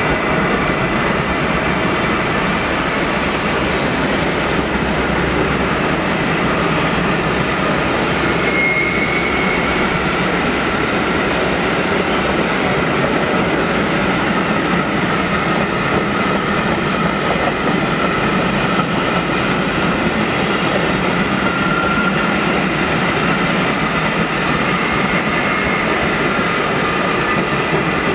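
A long freight train of empty timber stake wagons rolling past close by: a steady rumble and rattle of wheels on rail, with a faint brief squeal twice.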